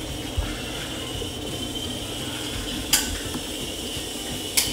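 Two sharp clicks about a second and a half apart, small toy cars clacking against a metal stair post, over a faint steady hiss.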